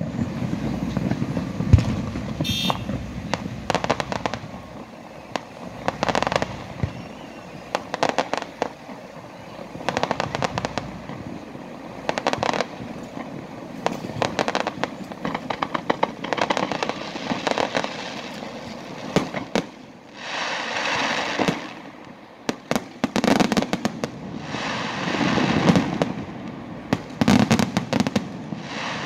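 Fireworks display: aerial shells bursting one after another, often several in quick succession, with crackling between the bangs.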